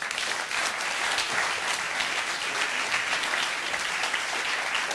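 Audience applauding steadily: many hands clapping at once, starting just before and holding at an even level.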